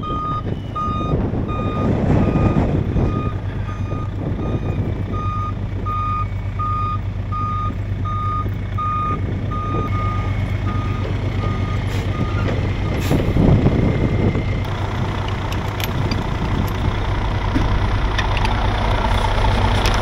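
Backup alarm of an Autocar snowplow truck beeping about twice a second as it reverses, stopping about two-thirds of the way through, over the truck's engine running steadily.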